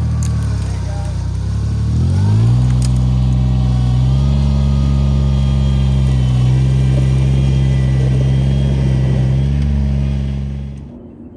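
John Deere 430 garden tractor's diesel engine running, speeding up about two seconds in and then holding a steady higher speed as the tractor is backed up, before cutting off sharply near the end.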